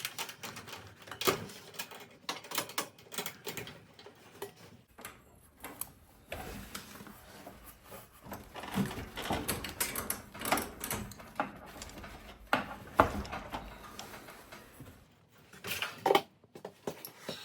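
Steel garage door lift cable being worked back onto its cable drum by hand: irregular metallic clicks and clanks, with one sharper knock about 13 seconds in.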